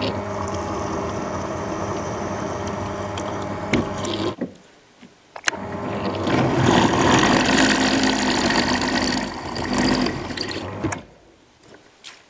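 Bench drill press running and drilling into an aluminium block, first with a thin bit. After a short pause about four seconds in, a 10 mm bore is drilled, with the cutting louder, and the machine stops near the end.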